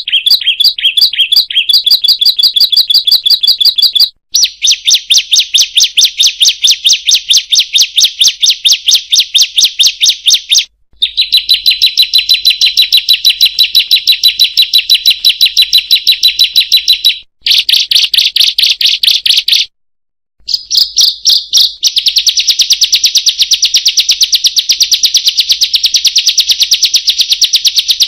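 Bar-winged prinia (ciblek) song: fast, high chattering notes repeated many times a second, in runs of several seconds broken by a few sudden short gaps. It is a lure recording meant to set caged birds singing and to tutor them.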